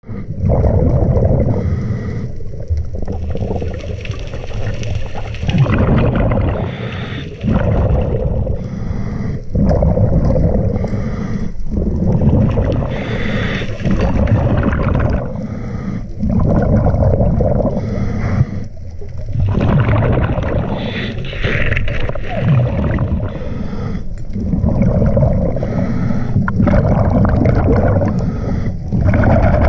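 Scuba diver breathing through a regulator underwater: gurgling bursts of exhaled bubbles and hissing inhalations, alternating in a cycle every few seconds.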